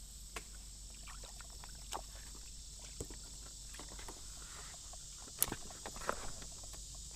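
A few scattered light knocks and taps, the sharpest about five and a half seconds in, over a faint steady hiss.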